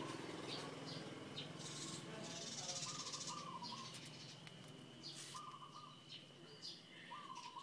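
Birds calling: three short, even calls about two seconds apart, over a faint steady high-pitched hum.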